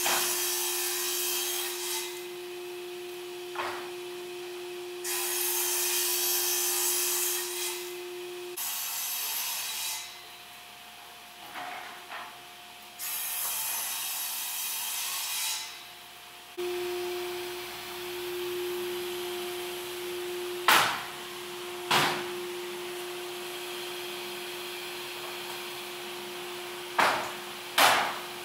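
Sliding table saw running with a steady hum, cutting through wooden boards twice with a loud rushing hiss. Near the end, boards knock sharply four times as they are handled.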